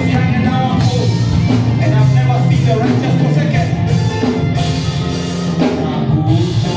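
Live gospel worship music: a band with drum kit playing a steady beat, with voices singing.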